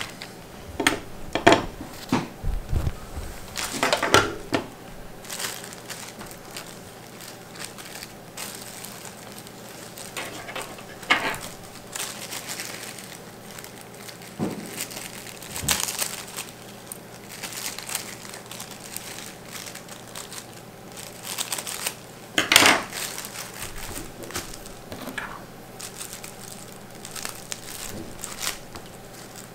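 Scattered rustling and light handling noises from hands and objects on a workbench: short, irregular scuffs and crinkles with gaps between them, the loudest about three quarters of the way through.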